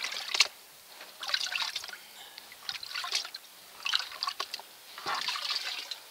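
Water sloshing and splashing as a riffled gold pan is dipped and swirled in a tub of water, in about five surges roughly a second apart: panning off the top layer of a fine gravel sample to leave the heavy material in the bottom of the pan.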